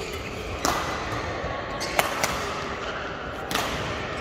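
Badminton rally: rackets striking the shuttlecock with sharp hits, roughly one every second and a half, ringing briefly in a large sports hall over steady background hall noise.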